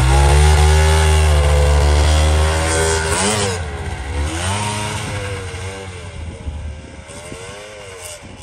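Polaris snowmobile engine, loud and steady at first, then revving up and down several times as the machine pulls away, growing steadily fainter.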